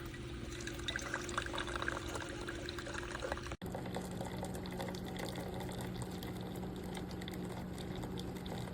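Keurig K-Express single-serve coffee maker brewing: liquid streams into a cup over a steady machine hum. About a third of the way in the sound cuts abruptly and resumes with a lower hum.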